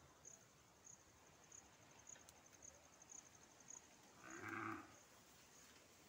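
Faint insect chirping in a steady pulse, about two chirps a second, and one short animal call, under a second long, about four seconds in.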